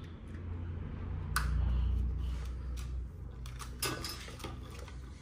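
Light metallic clicks and handling noises from the wire-feed mechanism of a Lincoln Electric flux-core wire welder as the welding wire is threaded back through its guide and drive roll by hand. A sharp click comes about a second and a half in and a few more near the end, over a low steady hum.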